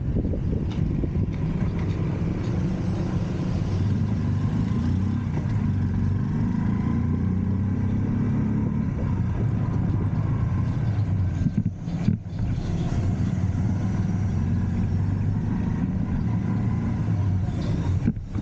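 A motor vehicle on the move: a steady, low engine hum with road noise. It drops away briefly about twelve seconds in and again near the end.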